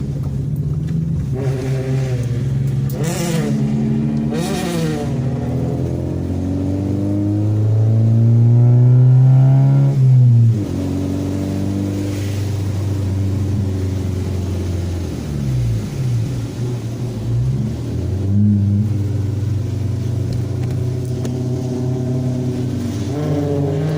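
Holden VT Commodore's engine revving up and down again and again. It climbs to a long, high rev about eight to ten seconds in, then drops away sharply.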